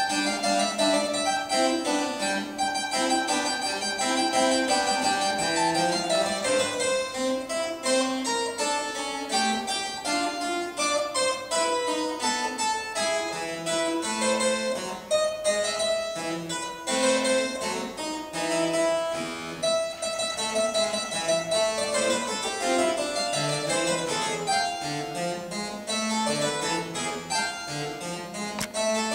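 Solo harpsichord playing a continuous stream of quick plucked notes, with running passages that climb and fall.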